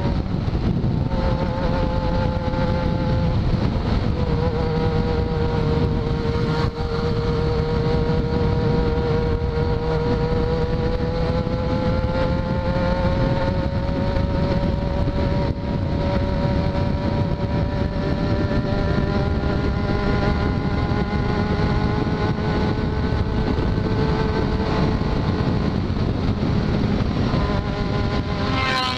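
Yamaha XJ6's 600 cc inline-four, fitted with an open, de-baffled exhaust, running at a steady cruising speed, its pitch drifting slowly up and down over a rush of wind and road noise. The revs change briefly near the end.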